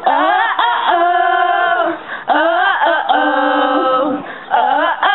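People singing long held notes in three phrases, with short breaks between them.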